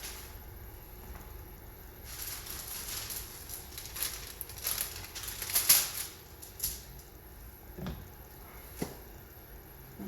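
Workbench handling sounds while glue is applied to a cardboard rocket body tube: a run of short, soft scrapes and rubs, the loudest a little past the middle, then two light clicks near the end.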